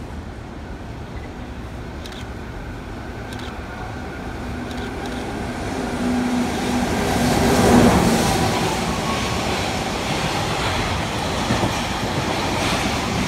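Container freight train hauled by an EF64 electric locomotive approaching and passing along the platform. It grows louder up to the locomotive going by about eight seconds in, with a steady low hum as it passes, then the container wagons keep rolling past.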